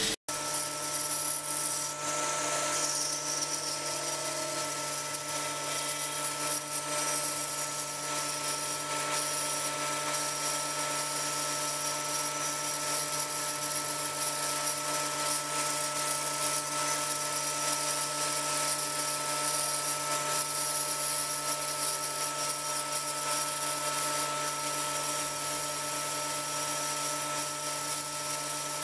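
Startrite 401E bandsaw running steadily with a constant hum, its blade cutting a circle through a glued-up oak bowl blank. The blade is dull.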